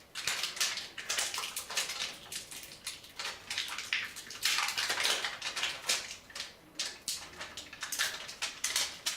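Hands handling a tyre-repair needle and repair cord: a series of irregular scraping and rustling noises.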